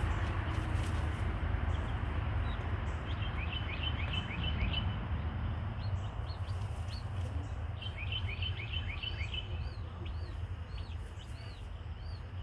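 Newly hatched chicks peeping: short high cheeps in quick runs, with single arched peeps between them, over a steady low background rumble.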